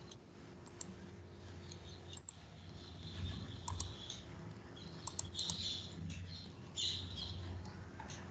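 Faint computer keyboard typing and mouse clicks, irregular and scattered, as code is edited in a program editor.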